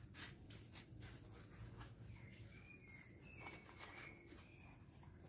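Near silence: faint rustles and soft clicks of synthetic fabric and lining being rolled up by hand, with a few faint high chirps in the middle.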